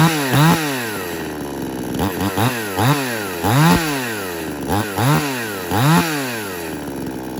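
Old two-stroke chainsaw running after a pull start, its throttle blipped over and over so the engine revs up and drops back about a dozen times, settling to a steady idle between the bursts and near the end.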